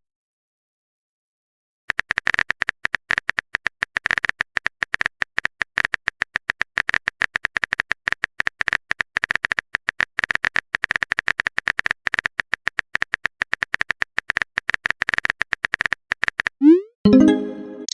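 Rapid typing sound effect, a long run of sharp clicks, starting about two seconds in, followed near the end by a short rising electronic tone like a message alert.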